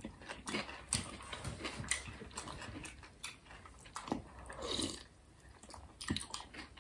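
Faint eating sounds from spoonfuls of okroshka: scattered small clicks of chewing and crunching radish, spoons tapping the bowls, and a soft sip about two-thirds of the way through.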